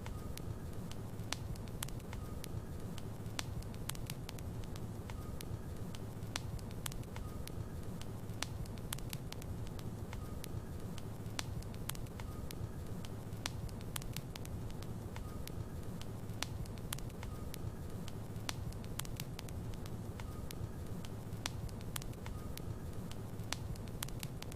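Wood fire burning in a fireplace: a steady low rumble of the flames with frequent sharp crackles and pops from the burning logs. A faint short high whistle recurs about every two seconds.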